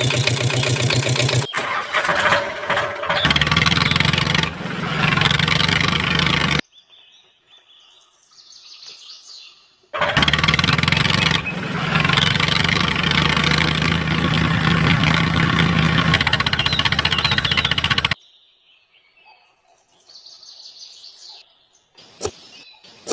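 A motor running loud and steady in two long stretches, each cutting off suddenly, with faint bird chirps in the quieter gaps between.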